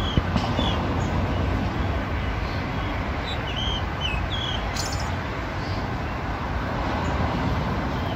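Birds chirping in the trees: several short, high, hooked chirps, most in the first half, over a steady low rumble of city traffic.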